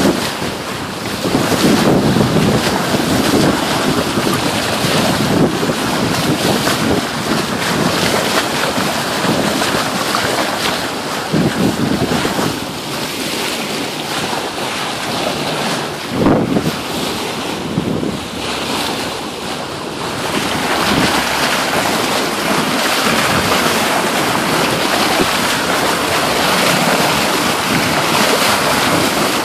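Wind buffeting the microphone on a sailboat under way, over the steady rush of water along the hull and wake. The gusts are heaviest in the first two-thirds; from about two-thirds of the way in, a steadier, brighter water hiss takes over.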